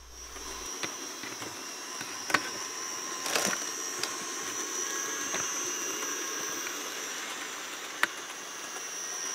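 Bachmann GP40 HO-scale locomotive running at speed, its motor giving a steady, high-pitched, annoying whine, with a few sharp clicks along the way. The whine comes from the cheap old motor design, which the owner says was loud to begin with and has only gotten worse with age.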